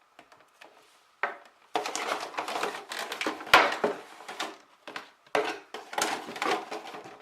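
Packaging being handled and unwrapped: irregular rustling and crinkling with a few light knocks, and one sharper knock about three and a half seconds in.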